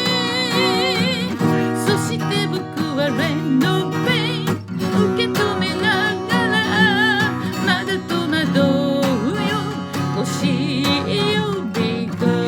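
A singer with an acoustic guitar: the guitar is strummed steadily under a sung melody, with vibrato on the held notes.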